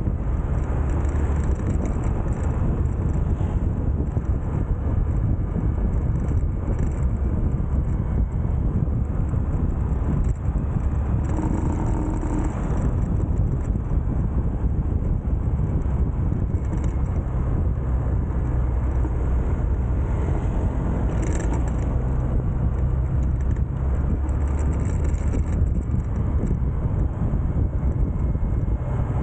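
A 150 cc single-cylinder motorbike engine running at a steady cruise, with wind rushing over the microphone.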